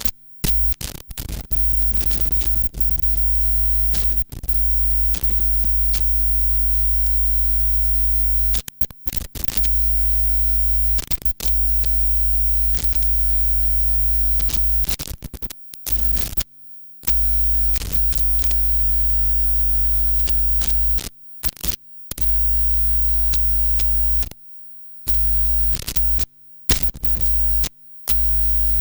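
Loud mains hum and buzz from a bad audio cable connection, cutting in and out abruptly with crackles and pops as the plug makes and loses contact. It drops out completely several times, around nine seconds in, near sixteen seconds, and repeatedly in the last third.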